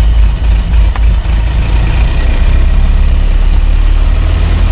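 Ford Model T's four-cylinder flathead engine idling steadily.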